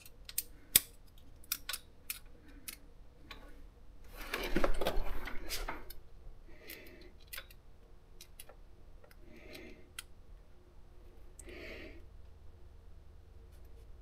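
Hand tools clicking and tapping on metal while the exhaust valve clearance on a GY6-type engine is being adjusted. A run of sharp clicks in the first few seconds is followed by a louder rustling scrape of about two seconds, then a few soft knocks.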